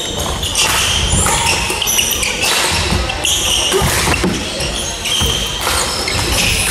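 Badminton rally on a wooden hall floor: racquets striking the shuttlecock, shoes squeaking and feet thudding as the players lunge and jump, ringing in a large hall.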